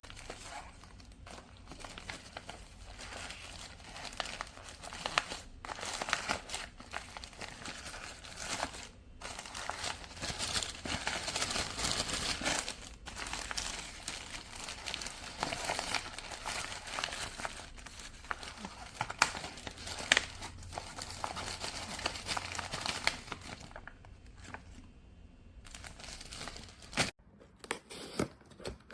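Plastic packaging crinkling and rustling as it is handled and torn open by hand, with irregular crackles and small clicks, thinning out near the end.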